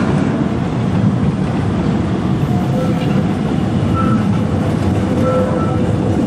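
Electric tram passing close at low speed: a steady rumble of wheels on rails, with brief faint whining tones coming and going.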